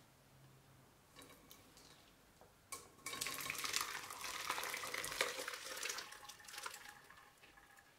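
Curdled milk, curds and whey, poured from a pot into a cheesecloth-lined bowl, splashing loudly from about three seconds in and then tapering off as the pour slows.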